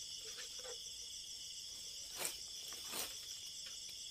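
Steady, faint high-pitched chirring of night insects such as crickets. Two brief, sharp sounds stand out, about two and three seconds in.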